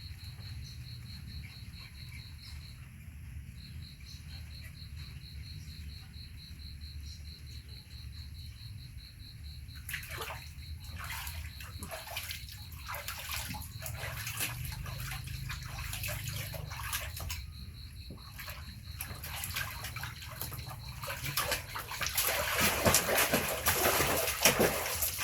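Bath water splashing and sloshing as a pet monkey is bathed. Irregular splashes start about ten seconds in and become louder and busier near the end.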